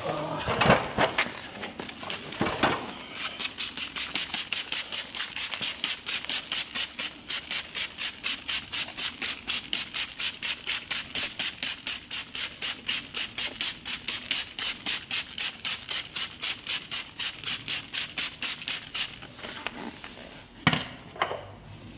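A hand trigger spray bottle is pumped rapidly, spraying liquid onto an alloy wheel and tyre. It gives a long run of short, even hissing squirts, about three a second. A single sharp knock comes near the end.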